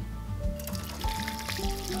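Soy-sauce brine poured from a pot through a fine mesh strainer, a splashing pour that begins about half a second in, over background music.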